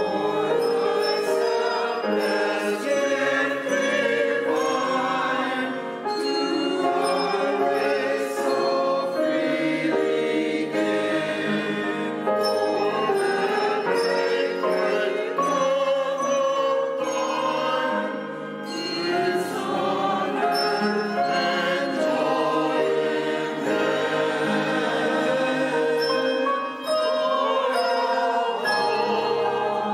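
Voices singing sacred music with piano accompaniment, held notes wavering with vibrato.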